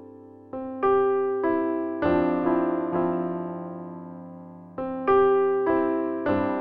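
Slow piano music: notes and chords struck a few at a time, each ringing out and fading, with a longer pause before a new phrase about two-thirds of the way in.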